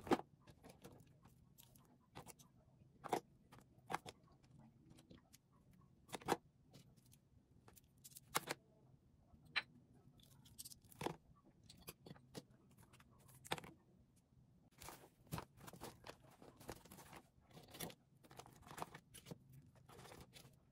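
Makeup products being handled and set into a zippered toiletry bag: light clicks and taps of plastic cases and pencils knocking together, one every second or two, with soft rustling that grows busier near the end.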